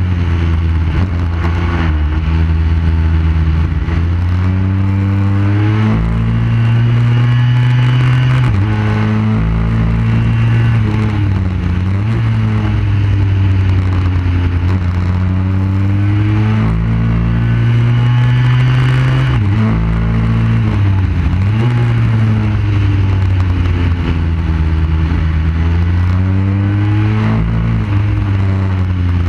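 Onboard sound of a motorcycle engine at racing speed on a circuit: the engine note climbs through the gears with abrupt steps at each shift, then drops away as it slows for corners, several times over, with a steady rush of wind and exhaust noise underneath.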